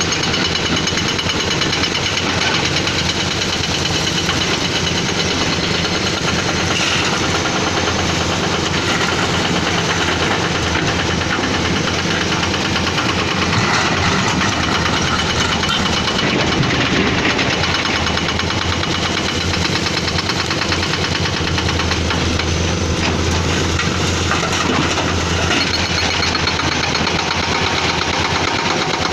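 Caterpillar 320D excavator's diesel engine running steadily, with a rapid clattering pulse.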